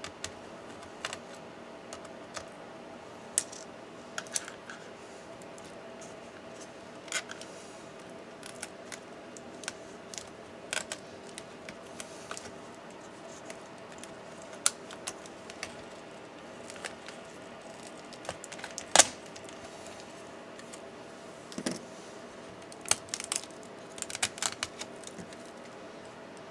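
Scattered small clicks, taps and scrapes of hands and a small screwdriver working on a laptop's internals, as plastic and metal parts are handled. There is one sharp click about two-thirds of the way through and a cluster of clicks near the end, over a steady low hum.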